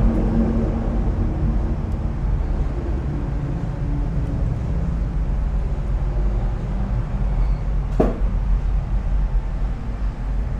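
Steady low rumble with a pitched hum that fades out over the first few seconds, and a single sharp click about eight seconds in.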